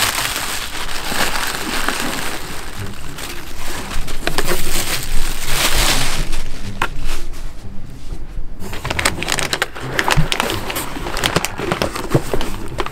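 Plastic air-cushion packing crinkling loudly as it is pulled out of a cardboard box, then about six seconds in, sharper crackles and clicks as a foil food pouch and a tin are handled against the cardboard.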